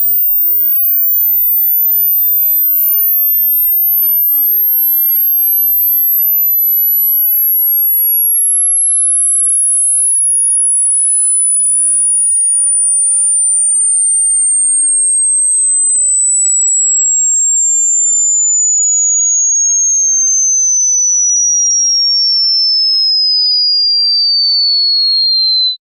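Hearing-test sweep: a single pure sine tone that falls slowly and steadily in pitch, in tiny steps, from the very top of the hearing range down to a high whistle, at a constant loud level. It cuts off suddenly at the end.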